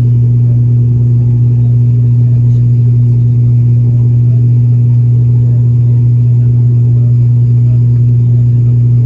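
Cabin drone of an ATR 72-600's Pratt & Whitney PW127 turboprops and six-blade propellers, heard from a forward seat near the propeller plane: a loud, steady low propeller hum with a fainter overtone above it over a rumbling engine noise.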